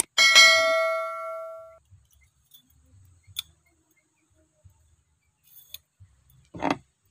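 A metal tube bar knocking against another bar on the wire, giving one sharp clink that rings on for about a second and a half. A few faint small clicks follow as the bars are handled, and there is a short muffled knock near the end.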